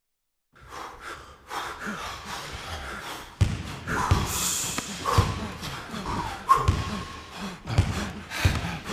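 A basketball bouncing on a gym floor in repeated thuds, about one to two a second, starting after the first few seconds, with heavy breathing between the bounces.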